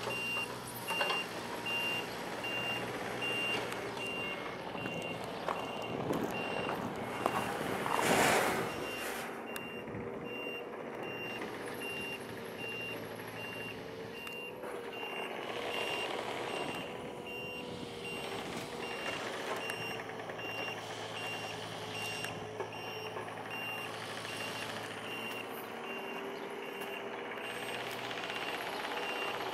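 An electronic beeper sounding high beeps at an even pace, over a steady engine hum. A louder whoosh swells and fades about eight seconds in.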